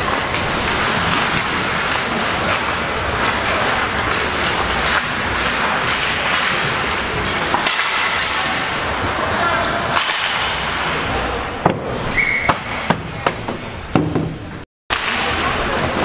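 Ice hockey play on a rink: a steady hiss of skates and arena noise, then in the last few seconds a string of sharp cracks from sticks and puck. The sound cuts out for a moment near the end.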